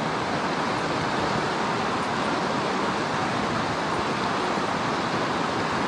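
Mountain stream rushing: a steady, even wash of running water.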